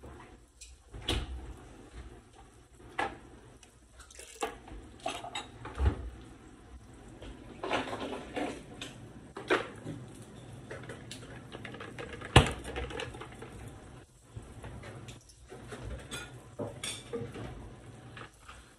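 Kitchenware being handled: scattered clinks and knocks of dishes, utensils and containers, with the sharpest knock about twelve seconds in.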